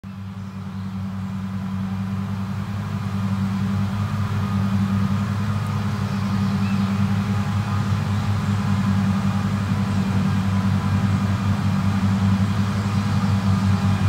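Krone BiG M 420 self-propelled mower's V8 diesel engine running at a steady working pitch while mowing grass. It grows louder over the first few seconds, then holds steady.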